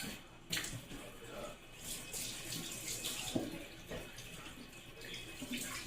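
Kitchen tap running into the sink while raw chicken is rinsed under it, the water splashing unevenly, with a couple of knocks.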